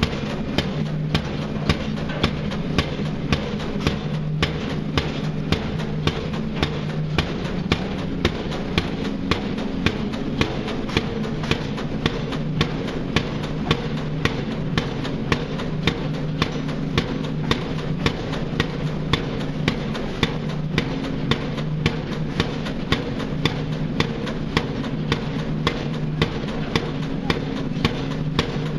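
Pile driver hammer striking a pile at an even pace, about one and a half blows a second, over the steady running of the rig's engine.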